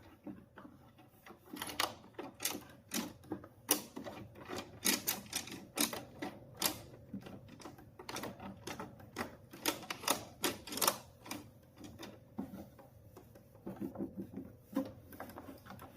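Irregular clicks and taps, a few a second, from hands handling and cleaning the plastic casing of a sewing machine.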